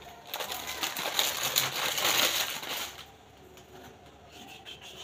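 Plastic Maggi instant-noodle wrapper crinkling as it is handled and crumpled. It dies down about three seconds in.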